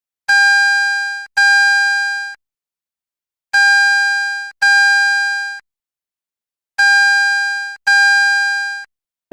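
Electronic alarm or buzzer tone: a steady, buzzy, mid-pitched beep sounded in pairs of one-second blasts, three pairs about three seconds apart, each blast fading slightly before it cuts off.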